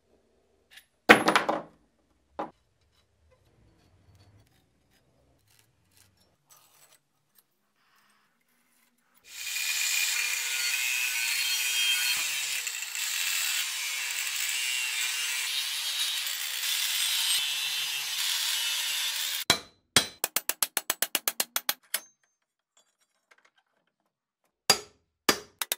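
A sharp knock, then about ten seconds of steady cutting or grinding noise from a power tool working metal, followed by fast runs of clicks, about ten a second.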